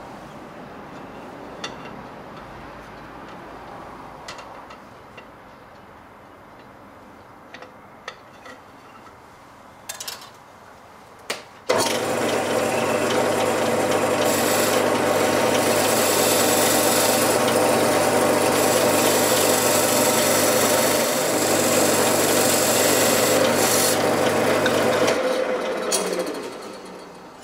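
A few light clicks and knocks as an LED ring is handled against a wooden disc. About twelve seconds in, a wood lathe starts with a steady motor hum, and a turning tool takes fine scraping cuts on the spinning wooden disc for about thirteen seconds. Near the end the lathe is switched off and the noise dies away as it runs down.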